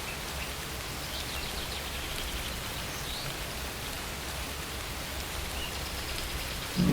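Steady rain falling, an even hiss, with a few faint bird chirps over it.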